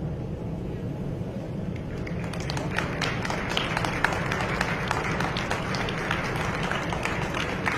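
Audience applauding, beginning about two seconds in, over a steady low hum of the hall.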